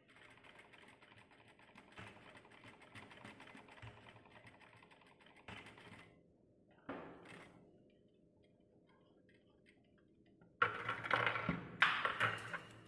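Industrial single-needle lockstitch sewing machine stitching steadily with a fast, fine clatter for about five and a half seconds, then stopping. Near the end, louder rustling and sliding of the cotton cloth as the work is pulled across the machine table.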